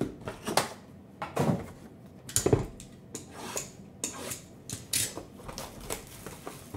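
Cardboard trading-card boxes knocking and sliding on a table, with the loudest knock about two and a half seconds in, then plastic shrink-wrap crinkling and tearing as a sealed box is unwrapped.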